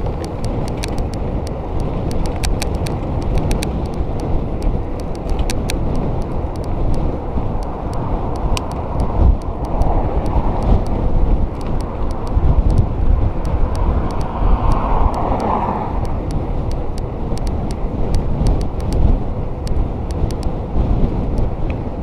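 Wind rushing over the microphone of a bicycle riding at speed, with a low rumble from the tyres on the road and scattered light clicks. A passing car swells up and fades about two-thirds through.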